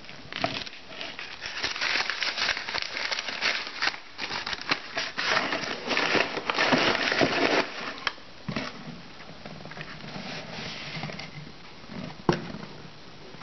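Kraft paper being crumpled and crinkled by hand and packed into the bottom of a cardboard shipping box: a dense crackling rustle, loudest for the first eight seconds or so, then quieter, with a single sharp tap about twelve seconds in.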